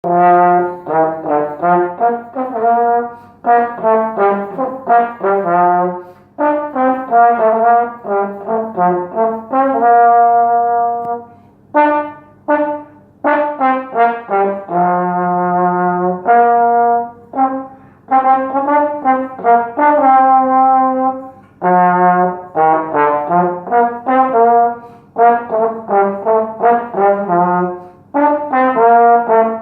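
Pan American (pre-Conn) small trombone played solo, a melody of short tongued notes and phrases with a few long held notes.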